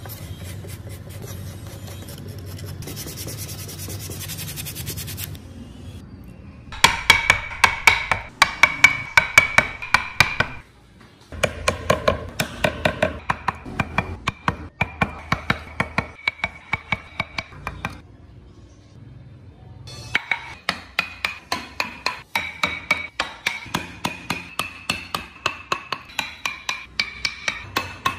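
Carving chisel driven into wood by mallet strikes, in runs of sharp, regular taps about three to four a second, with short pauses between the runs. It opens with a few seconds of steadier scraping.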